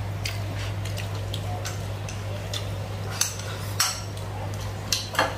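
Light clicks and taps of chopsticks and tableware against plates and a metal rice pot, spaced irregularly, over a steady low hum.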